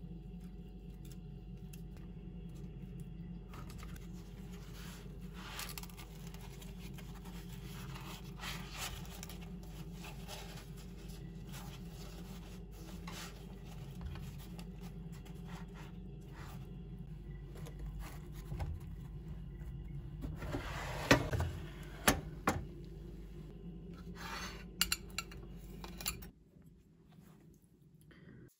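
Dishes and cutlery clinking and scraping, with a few louder sharp knocks about two-thirds of the way through, over a steady low hum that cuts off suddenly near the end.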